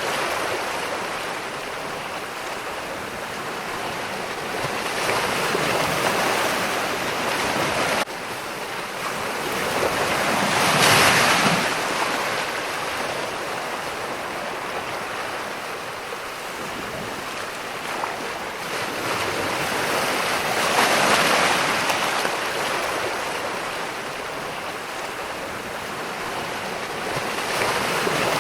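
Ocean waves breaking and washing ashore, a steady rush of surf that swells and fades in slow surges every several seconds.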